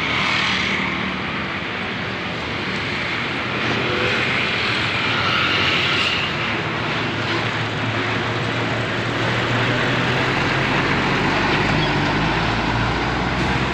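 A steady engine rumble over dense outdoor noise, growing slightly stronger in its low hum toward the end.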